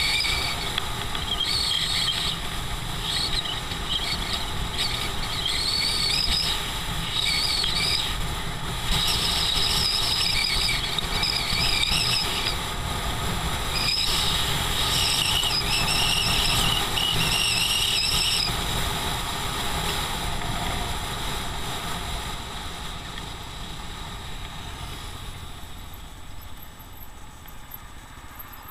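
Motorcycle riding along a road: engine and wind noise on the bike-mounted camera's microphone, with on-and-off high-pitched squeals through the first two-thirds. It grows quieter over the last several seconds.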